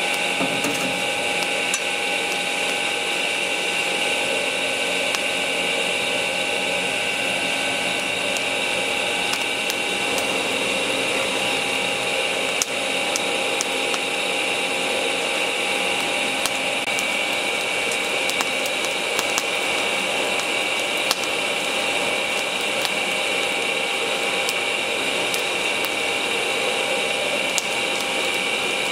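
Electric fan running steadily, its motor whirring with a constant hum, driving air into a charcoal forge fire. Scattered small crackles and ticks come from the burning charcoal.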